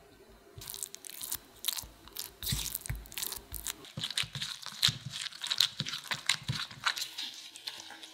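White modeling chocolate (melted white coating chocolate mixed with corn syrup) being worked as it seizes into a dough: a run of irregular wet crackling and squishing. By the second half gloved hands are kneading and squeezing the mass as its fat seeps out.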